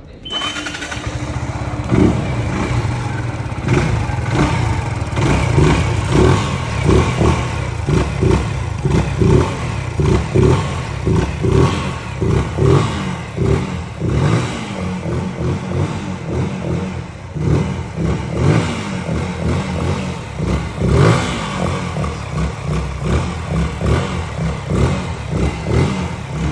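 Zontes ZT155's 155 cc single-cylinder engine running, revved again and again in short blips that rise and fall about once a second.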